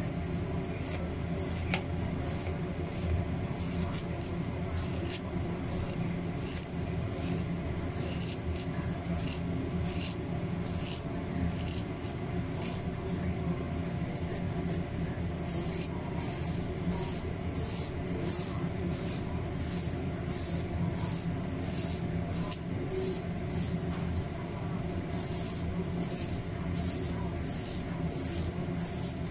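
A kitchen knife slicing raw corn kernels off the cob, a rhythmic crisp scraping about two strokes a second as the blade runs down the cob. A steady low hum runs underneath.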